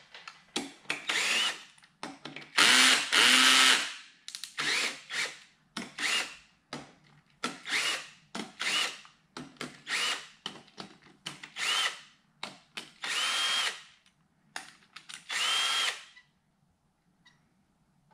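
Cordless drill backing out the clutch spring-plate screws on a Ducati wet clutch. It runs in a string of about a dozen short bursts, each whine rising as the motor spins up, with longer runs around 3, 13 and 15 seconds in.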